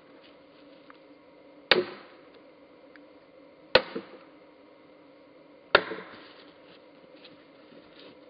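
Sledgehammer striking a steel splitting wedge driven into an Osage orange log to split it. There are three sharp blows about two seconds apart, each with a short metallic ring.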